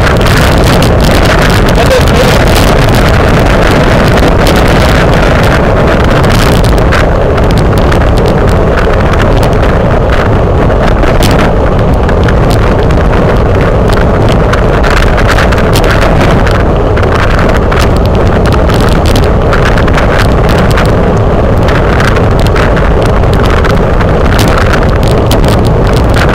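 Loud, steady wind rush over the microphone of a camera riding on a racing bicycle at speed, with frequent small knocks and rattles from the road.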